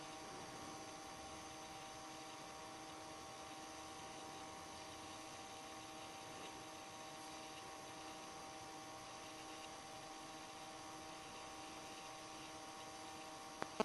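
Faint, steady electrical hum with several constant tones over a low hiss, unchanging throughout.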